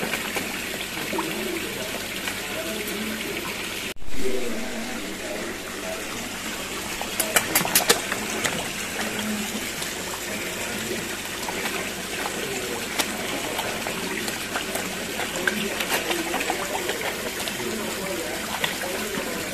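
Water splashing and sloshing as a crowd of ornamental fish thrash at the surface around a hand in the water. A louder splash comes about four seconds in, and a quick run of sharp splashes and clicks a few seconds later.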